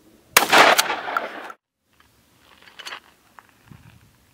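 A single loud gunshot about a third of a second in, its echo ringing on for about a second before it cuts off suddenly.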